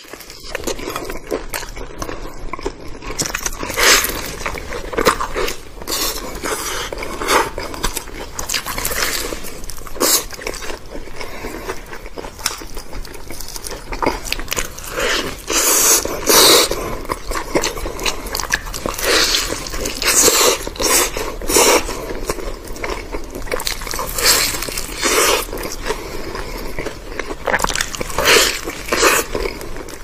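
A person biting into and chewing a crisp-fried rice patty (a rice "sandwich"): repeated crunchy bites and crackling chews at an irregular pace, with louder crunches every few seconds.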